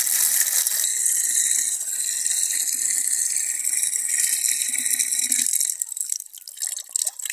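Water pouring into a plastic bucket: a steady splashing hiss that thins out and breaks up about five and a half seconds in, then stops near the end.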